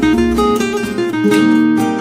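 Background music: an acoustic guitar plucking and strumming a melody.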